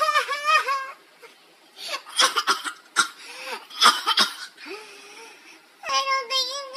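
A girl fake-crying for comic effect. A wavering, sing-song wail gives way about two seconds in to a run of loud, gasping sobs, and the wailing starts again near the end.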